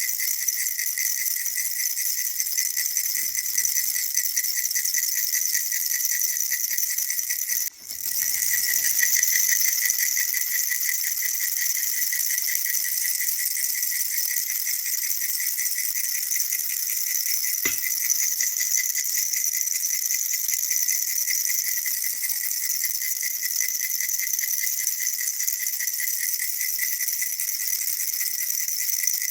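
Baby rattle shaken continuously and fast, a dense high-pitched rattling of small beads, with a brief break about eight seconds in.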